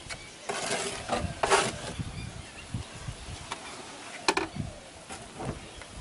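Wet cement being scraped and pressed onto a board with a trowel and hands, in a few short scrapes and knocks. The loudest comes about a second and a half in.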